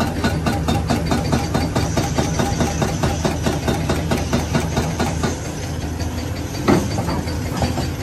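Hydraulic breaker on a large Caterpillar excavator hammering concrete rubble in a rapid, even stream of blows over the steady drone of the diesel engine. The blows thin out after about five seconds, and there is one louder clank near the end.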